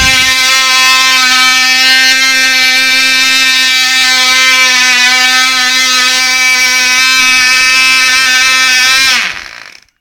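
Cox .049 two-stroke glow engine on a model plane running flat out with a steady buzz, then dropping in pitch and cutting out about nine seconds in.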